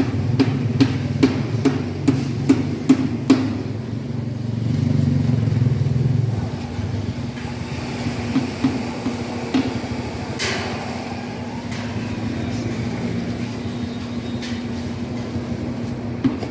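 Hammer blows on a building site, about three a second for the first few seconds and then scattered knocks, with a single louder clank about ten seconds in. A steady engine hum runs underneath and drops back after about six seconds.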